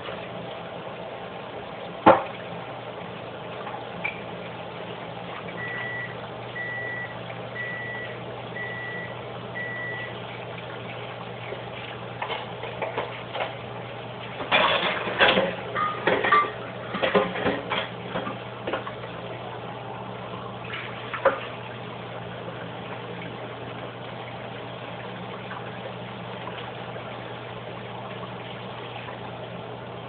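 A kitchen appliance beeps five times, short electronic tones about a second apart, over a steady low hum. A few seconds later comes a burst of clattering knocks, then one more knock.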